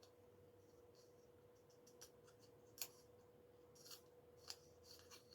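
Faint clicks and scratches of a small camcorder lens-hood part being handled and threaded into the hood. Scattered sharp ticks start about two seconds in, the loudest near three seconds, over a faint steady hum.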